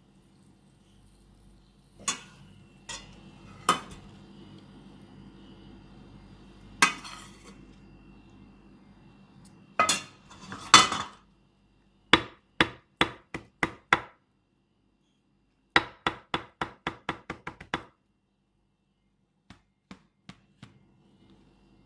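Kitchen utensils clinking and knocking against dishes and pans: scattered sharp knocks, then two quick runs of evenly spaced taps, about three to five a second.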